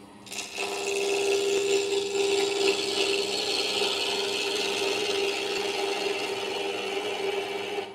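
Bowl gouge cutting a cedar of Lebanon cube spinning on a wood lathe. The tool is still cutting a lot of air between the cube's corners, which gives a steady scraping hiss over a humming note. The cut begins just after the start and stops abruptly at the end.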